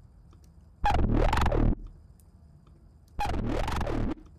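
A synth loop playing through FabFilter Volcano 3's filter, set to its Smooth style with a high resonance peak. It comes in two short phrases about two seconds apart, each with a ringing resonant tone that swoops down and back up over a stepping bass.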